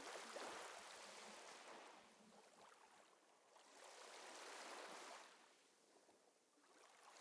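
Faint wash of small sea waves lapping, swelling and fading every few seconds.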